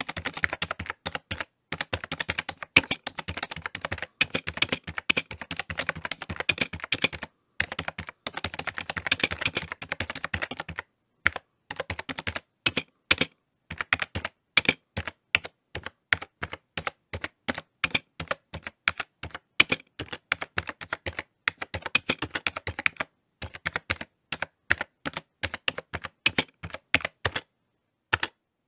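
Typing on a keyboard: rapid runs of keystroke clicks broken by short pauses.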